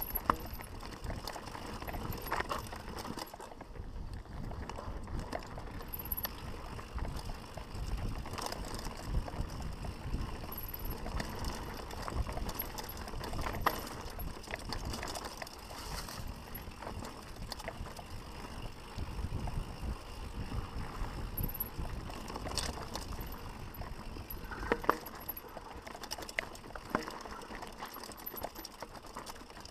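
Mountain bike riding downhill on a rocky dirt singletrack: a steady rough rumble of tyres on dirt, with frequent sharp knocks and rattles as the wheels hit stones.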